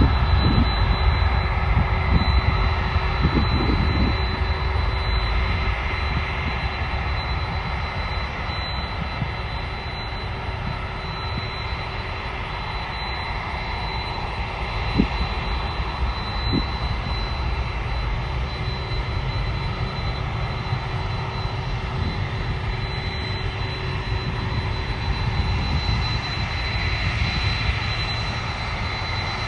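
Jet airliner engines running steadily, with a deep rumble and a thin, steady high whine.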